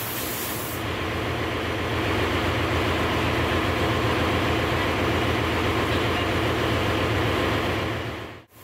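Steady din of running machinery in a ship's engine room, an even noise with a low hum underneath; it cuts off abruptly near the end.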